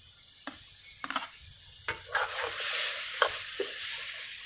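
A steel ladle scrapes fried taro root pieces into a pot of hot masala and stirs them, clinking sharply against the metal several times. From about two seconds in, the masala sizzles with a steady hiss as the taro goes in and is stirred.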